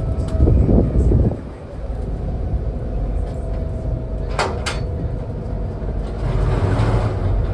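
Ferry engines running steadily, heard from inside the passenger cabin: a low drone with a constant hum, louder for the first second and a half. Two sharp clicks come about halfway through.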